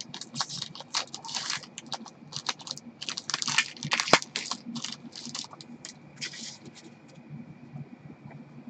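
Hockey trading cards being slid and flicked through gloved hands, a quick, irregular run of dry, crisp ticks and swishes that thins out after about six seconds.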